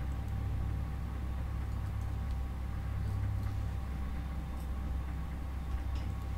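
Steady low hum of background noise from the recording setup, with a few faint clicks scattered through it that fit computer mouse clicks.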